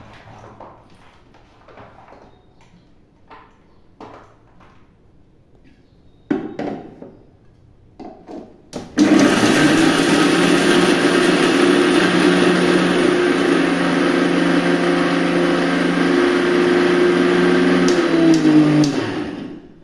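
Electric kitchen mixer grinder running with a small steel jar held down by hand. It starts suddenly about nine seconds in, runs steadily and loudly for about nine seconds, then winds down near the end. Before it starts there are only faint clinks and knocks of utensils.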